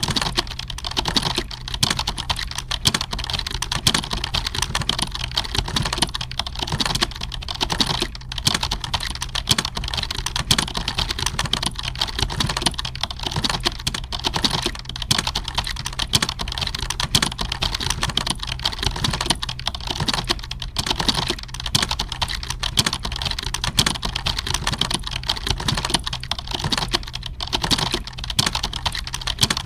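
Computer keyboard being typed on: rapid, unbroken key clicks, over a steady low hum.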